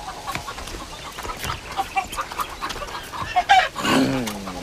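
Domestic hens clucking, with scattered short calls and a louder call about three and a half seconds in.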